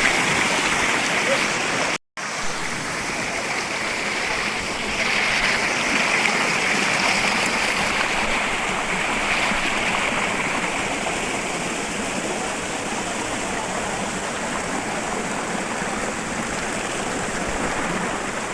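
Waterfall rushing: a steady, even roar of falling water. It drops out for a moment about two seconds in.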